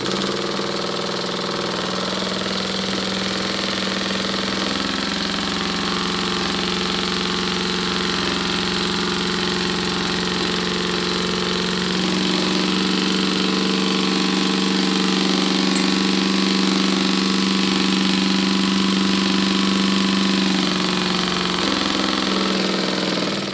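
Stuart Models single-cylinder oscillating engine running fast on compressed air: a steady high buzz over a hiss of escaping air, growing a little louder about halfway through.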